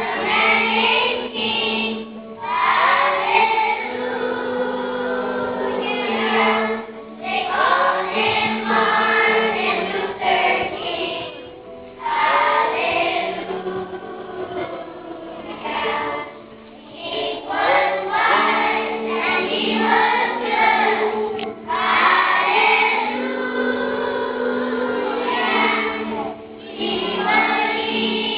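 A choir singing, with children's voices, in phrases a few seconds long that break off briefly between them, over steadily held low notes.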